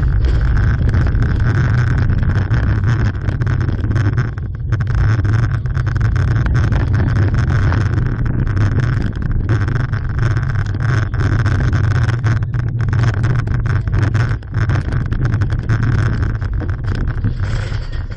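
Open-sided safari ride truck driving along: a steady low engine rumble with a whine and frequent small rattles, and wind buffeting the microphone.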